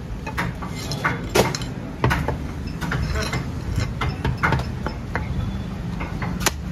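Heavy butcher's cleaver chopping pieces of goat head on a wooden log chopping block: irregular sharp knocks, the loudest about a second and a half in and again near the end.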